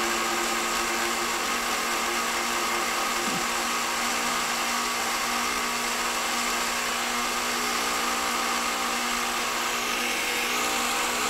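Countertop blender motor running steadily at speed, pureeing strawberries with sugar, lemon juice and a little water.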